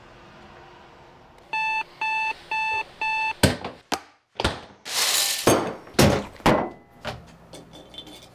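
Bedside alarm clock beeping, four even beeps at about two a second, followed by a quick run of sharp clicks, knocks and short rushing noises.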